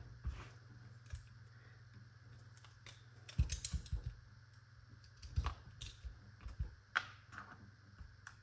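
Light metallic clicks and taps of small steel shotgun-action parts being worked apart with hand tools. The clicks come irregularly, in a quick flurry a few seconds in and again around five and seven seconds in.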